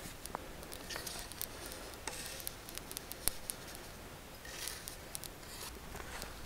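Two wooden boards scraping and pushing mustard seeds and sugar over the hot steel plate of a Feuerring grill, giving faint irregular scrapes and scattered sharp ticks as the sugar is lightly caramelized with the seeds.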